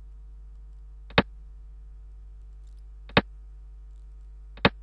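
Three sharp single clicks from a xiangqi program's piece-move sound effect, one for each move played on the board, about two seconds and then a second and a half apart. A faint steady hum sits underneath.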